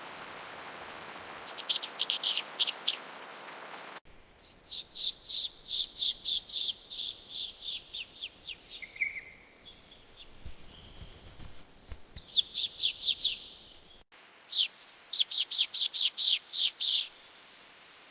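Bird song: bursts of rapid, evenly repeated high chirping notes, each burst lasting a second or two, repeated several times. The background changes abruptly twice, as the recording cuts between clips.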